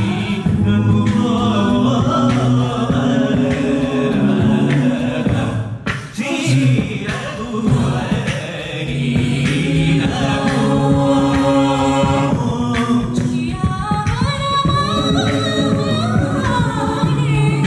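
Mixed-voice a cappella group singing into microphones: sustained low bass notes under layered harmonies and a melody line. The sound thins out briefly about six seconds in.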